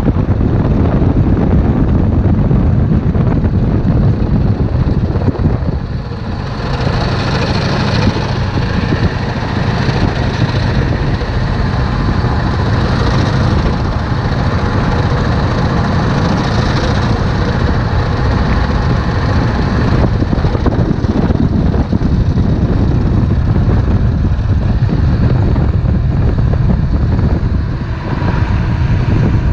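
Yamaha Drag Star 650's air-cooled V-twin engine running steadily with a heavy low rumble. The level dips briefly about six seconds in and again near the end.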